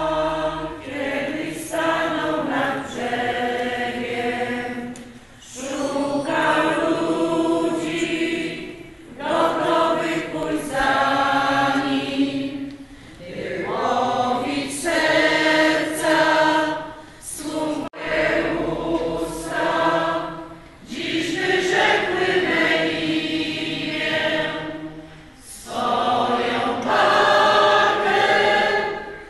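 Women's church choir singing a hymn in Polish, in phrases of a few seconds each with short breaks between them.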